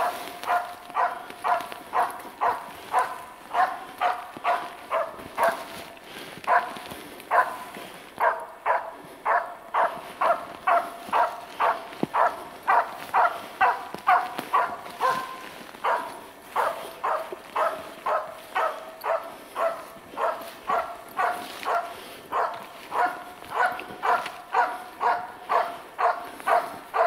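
Karelian-Finnish laika barking steadily and rhythmically, about two barks a second. This is a hunting laika baying at game up in a tree, marking a grouse for the hunter.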